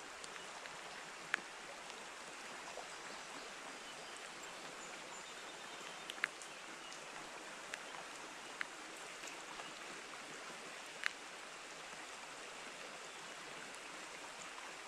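Steady rush of creek water running over a shallow riffle, mixed with falling rain, with a few sharp ticks scattered through it.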